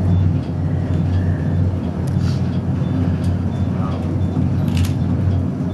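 Steady low hum and rumble of a moving elevator car during a fast ride.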